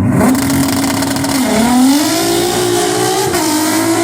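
A car engine starts with a sudden burst and runs at raised revs, its pitch climbing about a second and a half in and dropping back a little near the end.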